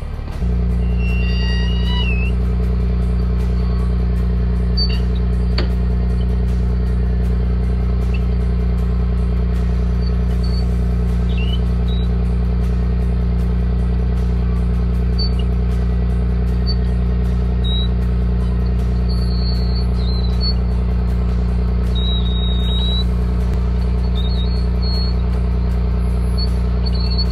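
Recovery truck's diesel engine running steadily, as when it powers the winch during a winch-out. Its drone comes in abruptly about half a second in and then holds an even pitch, with occasional faint high squeaks.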